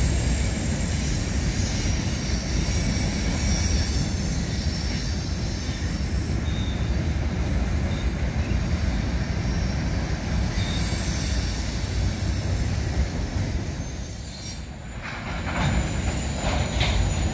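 A freight train of tank cars and hoppers rolling past, with a steady rumble of wheels on rail and intermittent wheel screeching. Near the end there is a run of sharp clanks as slack runs in and out between the cars.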